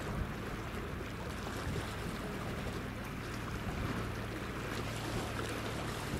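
Airbus A321 jet engines running at low power as the airliner taxis along the runway: a steady rumble with a constant low hum.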